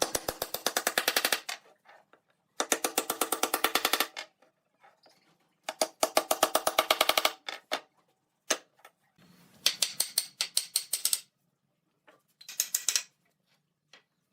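A power tool makes rapid, evenly spaced impacts, roughly fifteen a second, in five bursts of about a second each with short pauses between them.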